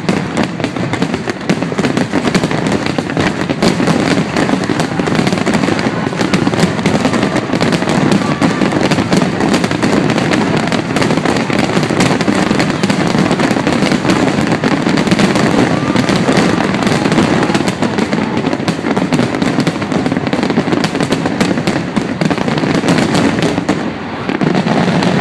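Dense, continuous fireworks barrage: aerial shells bursting with many rapid, overlapping bangs and crackles. It eases for a moment near the end, then picks up again.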